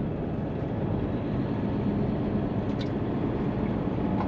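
Steady drone inside a Hino semi-truck's cab while it drives: diesel engine hum and road noise, even and unbroken.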